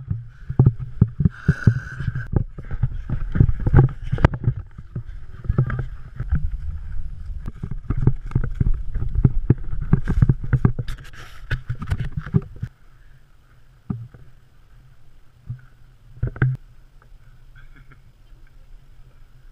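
Wind buffeting and rough handling noise on a body-worn action camera as its wearer runs, with a quick run of footfalls and jolts. About two-thirds of the way in it drops to a faint low rush with a few isolated knocks.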